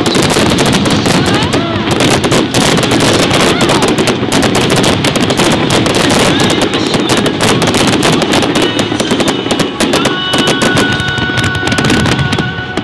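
A finale-style barrage of aerial fireworks: shell bursts and crackle fire in rapid, near-continuous succession. A steady high tone joins in over the last few seconds.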